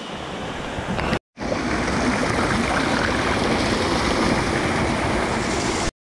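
Water rushing and splashing over the boulders of a rocky stream fed by waterfalls: a steady, even rush. It breaks off briefly about a second in and comes back louder.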